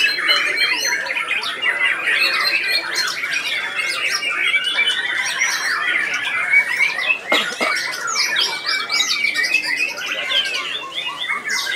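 Several caged white-rumped shamas singing at once: a dense, unbroken tangle of rapid, sharp notes that overlap without pause.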